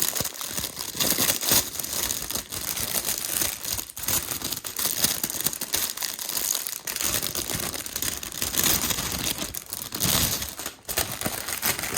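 Packaging being unwrapped by hand, crinkling and rustling in a continuous run of crackles.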